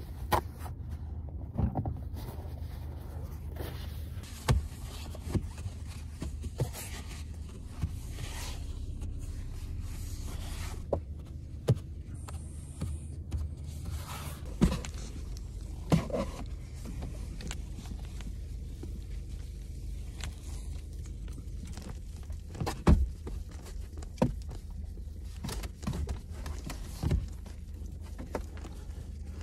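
Paper towels rustling and wiping over fogged car windows, in several strokes lasting about a second each, with scattered knocks and clicks from handling things in the car. Underneath is a steady low hum from the car's engine running with the heater on.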